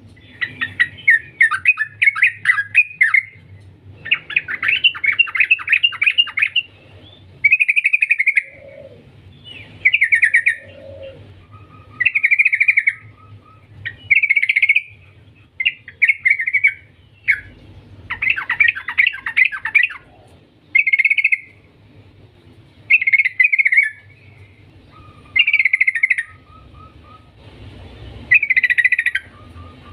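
Yellow-vented bulbul (trucukan) singing in short, bubbly chattering phrases every second or two, with a few longer runs of rapid rattling notes.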